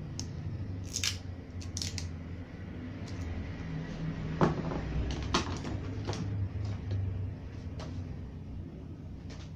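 Clear packing tape being pulled from its roll and cut with scissors: a few short rasps about a second in, then a series of sharp clicks and snips as the tape and scissors are handled, over a steady low hum.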